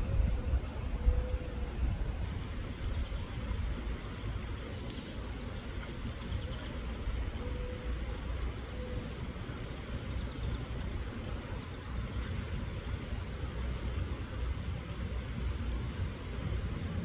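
Outdoor background: a steady low rumble with a thin, continuous high-pitched whine, and a few faint short tones now and then.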